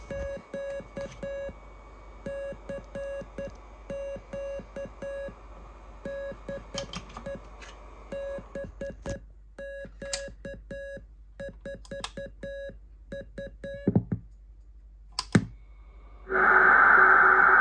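Morse code from a RockMite QRP CW transceiver: a steady audio tone keyed on and off in dots and dashes, with the light clicks of a telegraph key. A couple of louder clicks come near the end, and then a loud hiss cuts in, carrying a lower keyed tone.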